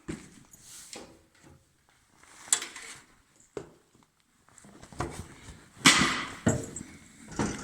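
Sharp metallic clanks and knocks, several separate hits with handling noise between them, the loudest about six seconds in: hand tools and metal parts being handled while working under a truck engine.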